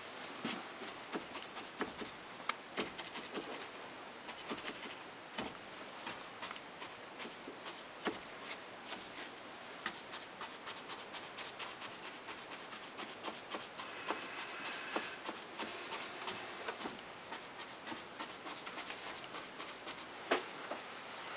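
A large round paintbrush stippling paint onto a fascia board: dense, irregular dabs and scrubbing of the bristles against the board, with one sharper tap near the end.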